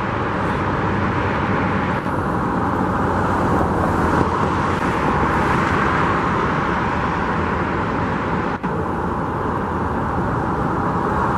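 Steady road traffic noise, even and continuous.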